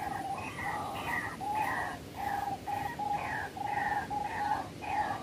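White-breasted waterhen (ruak-ruak) calls: a lower note paired with a higher, slightly falling note, repeated steadily about twice a second.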